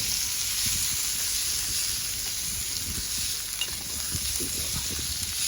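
Food sizzling in a hot pan over a campfire: a steady hiss, with an uneven low rumble beneath it.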